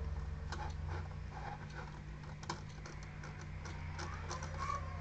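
Faint, irregular clicking from a computer mouse in use, over a steady low electrical hum.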